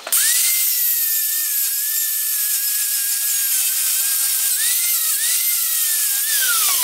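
Angle grinder cutting a slit in a piece of steel fence post, with a steady hiss of the disc on metal. The motor's whine rises as it spins up, sags in pitch a few times under load, and falls away near the end.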